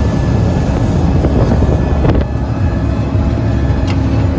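Jet boat running fast up a river: a steady engine drone under rushing water and wind buffeting the microphone.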